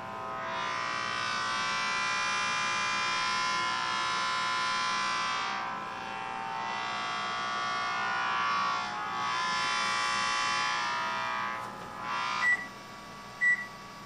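An IMC (a)EMF II audible electromagnetic-field detector turns a running microwave oven's field into a loud buzzing drone of many steady tones. It dips briefly twice and cuts off about 12 seconds in, when the oven stops. Two short beeps follow near the end, the microwave's timer signalling that it has finished.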